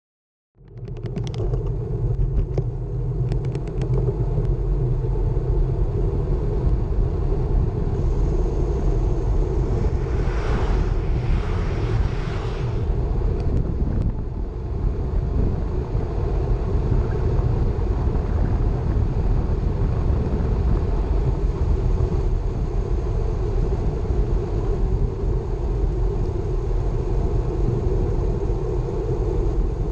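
Wind buffeting the microphone of a camera on a moving bicycle, a steady low rumble mixed with road noise, starting abruptly about half a second in. A brief higher hiss swells and fades around the middle.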